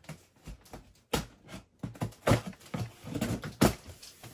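Cardboard box being cut and pulled open with a box cutter: an irregular run of scrapes, rips and knocks from the cardboard and its packing tape.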